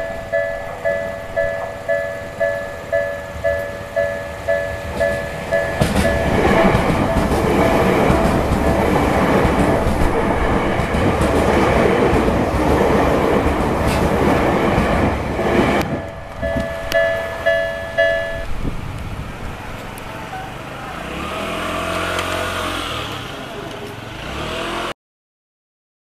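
Japanese level-crossing electronic warning bell ringing about twice a second, then a Tokyu Oimachi Line electric train passing over the crossing for about ten seconds, its wheels and running noise covering the bell. The bell is heard again briefly and stops once the train has cleared, leaving the train's fading rumble.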